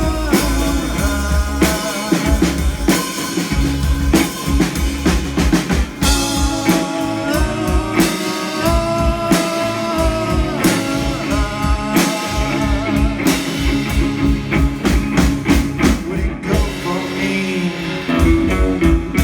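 Live rock band playing an instrumental passage, with a drum kit keeping a steady beat under sustained guitar and keyboard-like lines.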